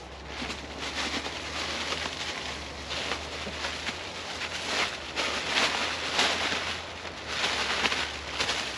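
Rustling and crinkling of packaging being handled, in irregular bursts, over a steady low hum.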